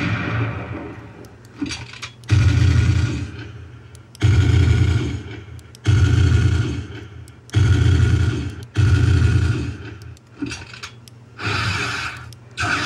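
Star Wars E-11 blaster shot sound effects played back by a DIY Arduino MP3 sound board, fired one at a time from its push buttons. There are about six shots, each starting sharply and fading over a second or so, then a few shorter, quieter effects near the end.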